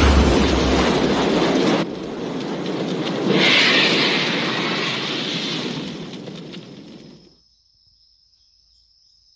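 Sound effects of an animated video intro: a loud rushing noise with a brighter burst about three seconds in, fading away by about seven seconds, then a faint thin steady high tone.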